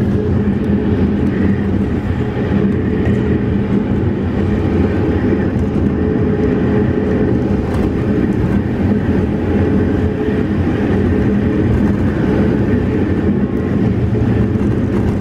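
Car driving along at steady speed, heard from inside the cabin: a steady engine hum under constant road and tyre noise.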